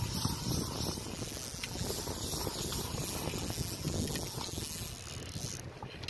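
Spinning fishing reel being wound in against a hooked fish, with a few faint ticks, under steady wind noise on the microphone.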